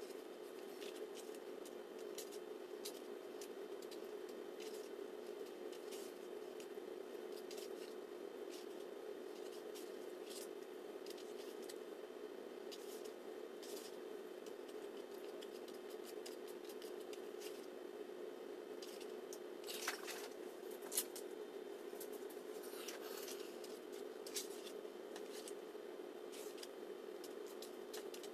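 Sticky lip gloss base being mixed on a foam plate, giving scattered soft clicks and scrapes, with two sharper clicks about two-thirds of the way through. A steady low hum runs underneath.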